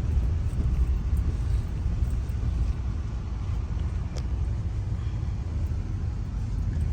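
Steady low road and engine rumble of a car driving, heard from inside the cabin. One faint click about four seconds in.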